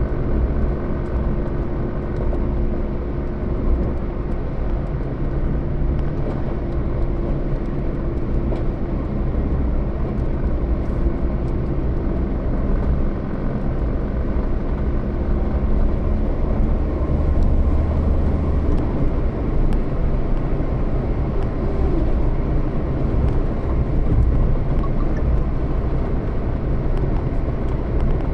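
A motor vehicle driving at a steady pace: a continuous low engine and road rumble with faint steady engine tones.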